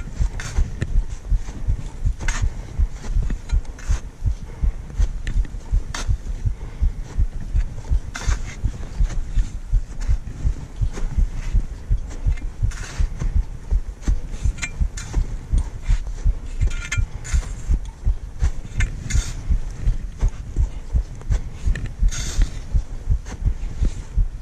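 A climber's footsteps during a mountain ascent: a steady rhythm of low thumps, about three every two seconds, with occasional sharper clicks and crunches.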